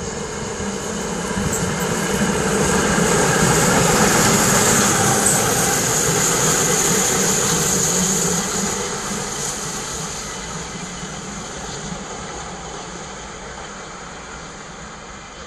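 Steam train headed by the DB class 65 tank locomotive 65 018 running through a station with its coaches: a rumble of wheels on rail with a high steady hiss, growing loudest a few seconds in and then fading as the train draws away.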